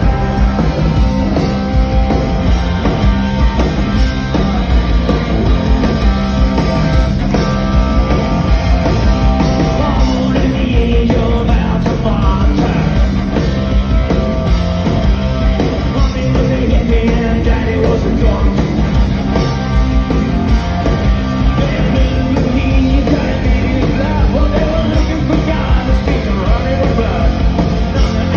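Live hard-rock band playing loud through the venue's PA: electric guitars, bass, drums and a singer, heard from the audience.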